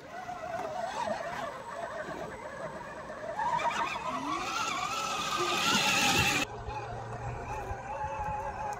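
Electric motor and gearbox of an RC scale trail truck whining as it drives, wavering in pitch. Its pitch rises and it gets louder about three and a half seconds in, then drops abruptly about six and a half seconds in to a quieter, steadier whine.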